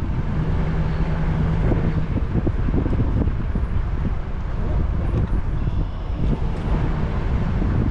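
A vehicle driving slowly: a steady low rumble with scattered small clicks and rattles, and a short steady hum in the first two seconds.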